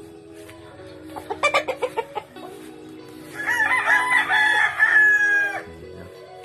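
Rooster crowing once, a long call of about two seconds that falls away at the end, after a rapid run of loud clucks about a second in.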